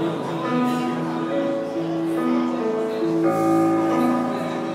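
Kurzweil electronic keyboard playing an instrumental passage of a slow country ballad: held notes and chords that shift every second or so.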